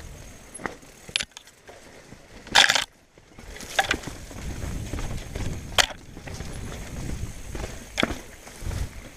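Mountain bike rolling fast over rocky singletrack: tyres crunching on stone and gravel with a steady rumble, broken by sharp knocks and rattles as the wheels hit rocks. The loudest clatter comes about two and a half seconds in.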